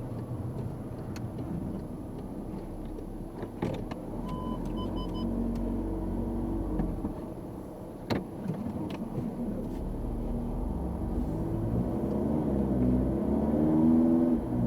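Car engine and tyre rumble heard from inside the moving car, the engine note rising and getting louder over the last several seconds as the car speeds up. A few short electronic beeps sound about four to five seconds in, and there are a couple of sharp knocks.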